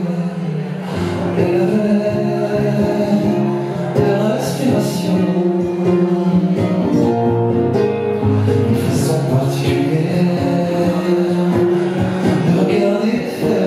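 A man singing a song live at the microphone, accompanied by his own guitar.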